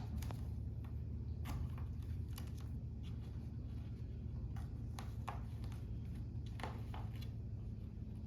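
Irregular small clicks and rustles of hands peeling packing tape and handling a boxed clock, over a steady low hum.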